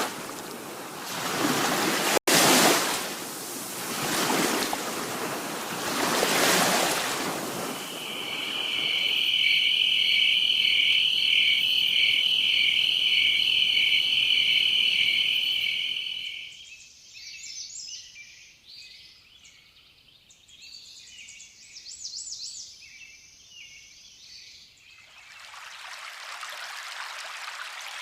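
A sequence of recorded nature sounds from a white noise machine. First ocean waves surge in and out; at about 8 s a high, pulsing trill takes over; at about 16 s scattered high chirps follow; and near the end a steady hiss like a running stream begins.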